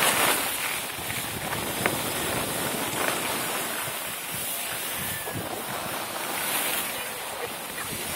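Steady rushing noise of skiing downhill: wind buffeting the phone's microphone and skis sliding over snow.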